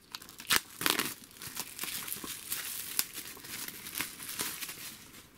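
Plastic shrink-wrap being torn open and peeled off a Blu-ray case, crinkling and crackling, loudest about a second in and trailing off near the end.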